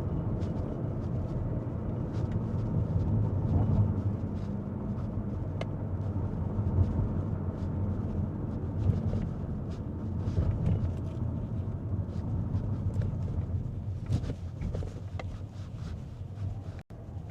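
A car driving along at a steady pace: a low, even rumble of engine and road noise.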